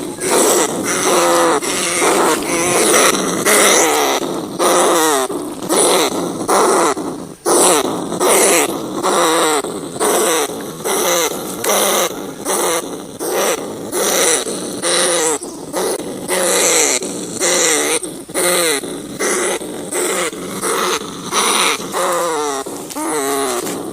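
Field rats calling: a continuous run of short, wavering squealing cries, one after another with brief breaks between them.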